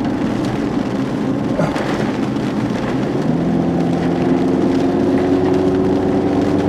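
A car's engine is running under a steady rush of road and rain noise, heard from inside the moving car. The engine hum grows steadier and clearer about halfway through.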